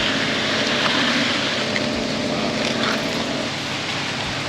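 Concrete truck's engine running steadily over a broad hissing noise. Its steady tone fades about three and a half seconds in.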